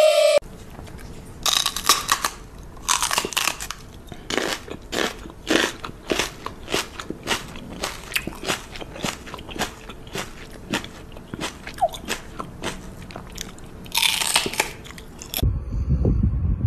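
An animal chewing something crunchy, with sharp crunches about twice a second. Near the end it cuts to a low rumble like wind on the microphone.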